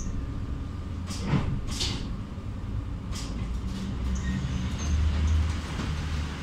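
Interior of a Bucur V2A-T tram at a stop: the doors open with clunks and short hisses of air about a second in, over the steady low hum of the tram's electrical equipment, which swells later on.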